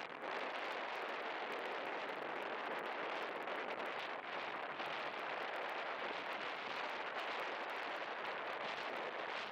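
Beach ambience: a steady, even hiss of wind and surf with no distinct events.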